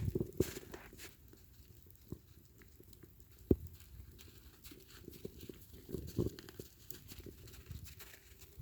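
Footsteps in snow: irregular soft crunches, with a single sharp click about three and a half seconds in.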